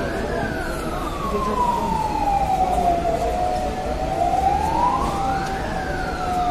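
Fire engine siren wailing, its pitch rising and falling slowly and peaking twice, about five and a half seconds apart, over a steady lower tone.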